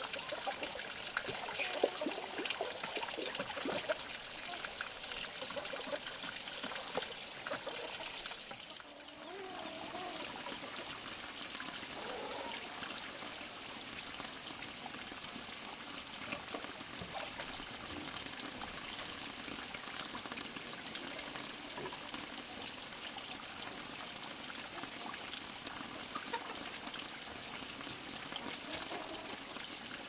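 Steady rush of running water, with faint taps and scrapes of concrete hollow blocks being set in place.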